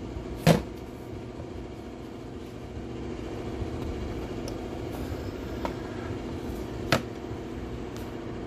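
Sharp knocks from the equalizer's metal case being taken off and handled: a loud one about half a second in, a smaller one near seven seconds. A steady machine-like hum runs under them.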